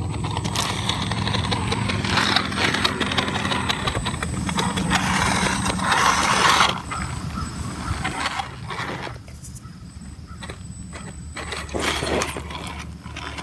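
Scale RC rock crawler (Vaterra Ascender chassis with Axial SCX10 axles) crawling over rocks: a steady whir from its electric motor and geared drivetrain, with tyres crunching and scraping on stones and gravel. It is louder for the first seven seconds or so, then quieter, with scattered scrapes and a brief louder burst near the end.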